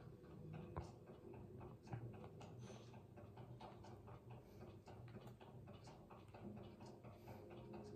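Near silence: room tone with faint scattered clicks, and two slightly louder soft ticks about a second and two seconds in.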